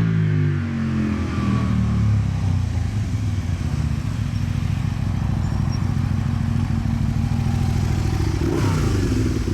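Aprilia Tuono's V-twin engine running through an aftermarket Leovince exhaust: the revs fall back from a blip and settle into a steady, lumpy idle, then a short throttle blip near the end before it drops back to idle.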